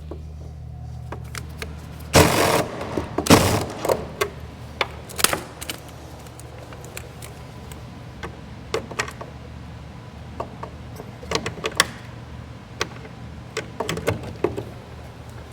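Scattered clinks and knocks of hand tools and loose metal parts being handled during disassembly work on a Humvee, with two louder short scraping bursts about two and three and a half seconds in, over a steady low hum.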